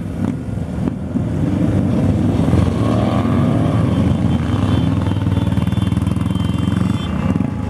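Motorcycles riding past one after another at low speed, several engines running at once, with one engine rising in pitch as it is revved about three seconds in.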